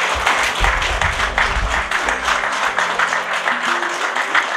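A small group applauding steadily, with music playing underneath.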